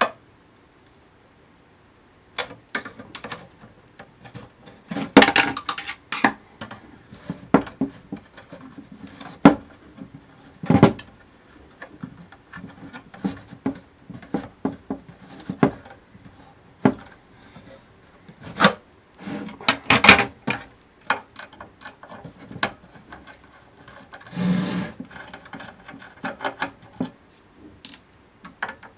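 Parts of an electronic control box being handled during disassembly: irregular clicks, knocks and clatter of boards, hardware and tools, with a longer rubbing scrape about three quarters of the way through.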